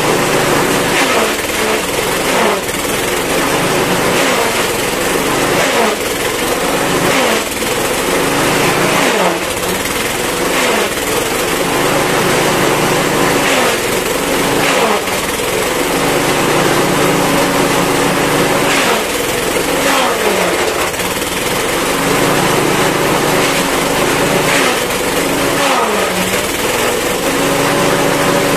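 Petrol-engine grass chopper running under load as bundles of odot (dwarf napier) grass are fed into its blades, with a constant chopping clatter. Every second or two the engine's pitch dips and then recovers as it bogs under each bundle.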